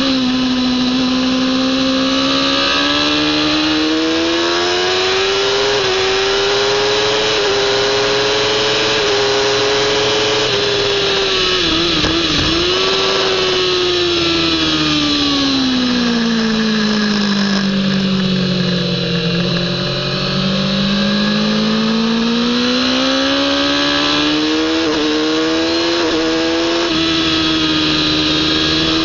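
Kawasaki ZX-10R inline-four sportbike engine running hard at high revs, with wind rushing past. The pitch climbs in steps through the gears, stutters briefly about twelve seconds in, falls away slowly to its lowest around twenty seconds in as the revs drop, then climbs again through two quick upshifts near the end.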